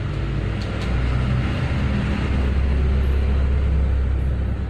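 A steady, loud, low mechanical hum, like a motor or engine running, growing slightly louder about a second in.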